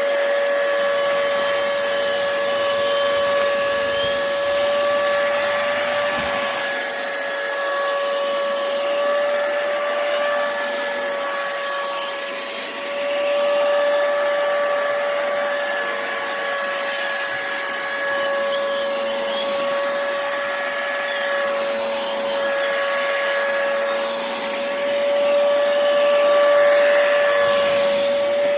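KV 01 Kurumi UV dust-mite vacuum cleaner running steadily: a high motor whine over the rush of suction, the level swelling and dipping a little.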